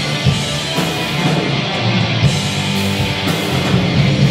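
Live heavy metal band playing loudly: distorted electric guitars, bass and drums with cymbals.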